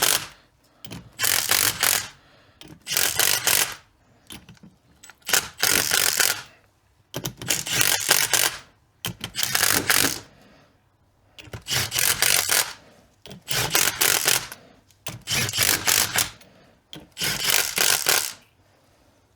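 A small hand ratchet running in ring gear bolts on a differential carrier, clicking in about eleven short strokes, one every one to two seconds.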